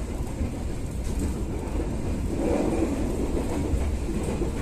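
Steady low rumble of a passenger train running along the track, heard from inside the coach, swelling a little about halfway through.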